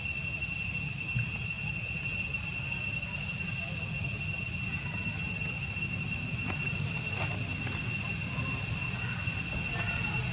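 Insects droning in a steady, high-pitched, unbroken tone, with a low steady rumble underneath.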